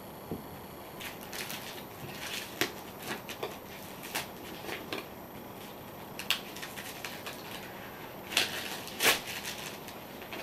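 Clear plastic shrink-wrap being torn and peeled off a cardboard product box, crinkling and crackling in irregular bursts, the loudest near the end.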